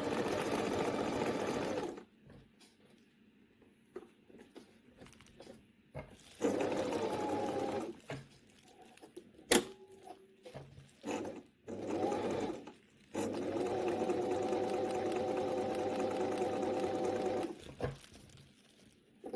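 Singer Tradition 2282 sewing machine running under its motor in several bursts: one stopping about two seconds in, another midway, a few short bursts, then a longer steady run near the end, with sharp clicks in the pauses. The machine is still dusty and not yet cleaned or oiled.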